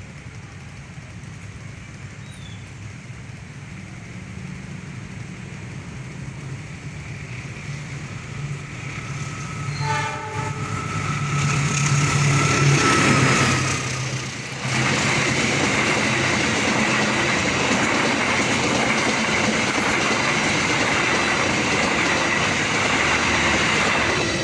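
A train approaching and passing at speed, its horn sounding briefly about ten seconds in, then loud wheel and rail noise that holds steady to the end, with a short dip partway through.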